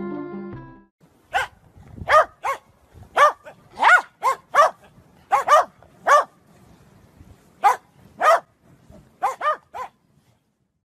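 Corgi barking: about fifteen short, high-pitched barks in uneven groups of one to three.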